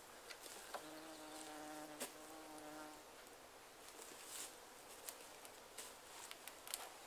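A flying insect buzzing in a steady hum for about two seconds, starting about a second in, among faint scattered clicks.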